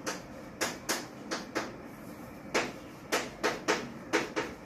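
Chalk writing on a blackboard: about a dozen short, sharp tapping strokes at an irregular pace, with a pause of about a second near the middle.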